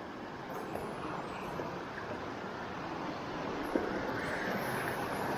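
Mountain creek rushing and splashing down a rocky bed, a steady hiss of water that grows slightly louder, with one faint knock about two-thirds through.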